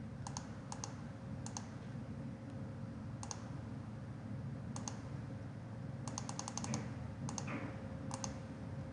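Computer mouse clicking at a few scattered moments, with a quick run of about eight clicks a little after six seconds, over a faint steady hum of room noise.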